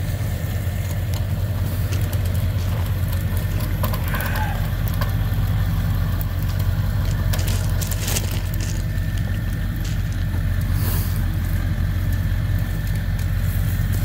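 Vehicle engine idling steadily, with a few light knocks and clinks.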